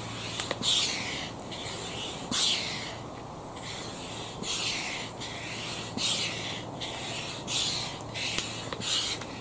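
Upright hand pump inflating the air chambers of an inflatable kayak: a rush of air with each stroke of the handle, about one stroke a second in a steady rhythm.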